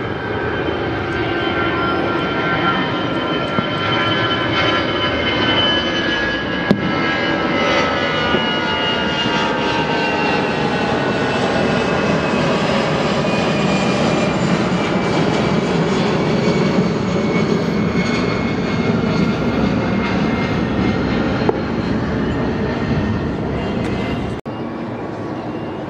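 Airbus A319-112 jet airliner at takeoff thrust as it lifts off and climbs away, its CFM56 turbofans giving a steady roar with whining tones that slowly fall in pitch. The sound breaks off abruptly near the end.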